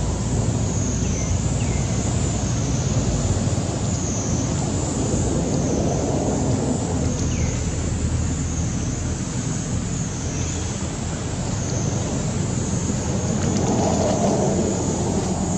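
Steady outdoor background noise with a low rumble and a constant high hiss, and a few faint short falling chirps.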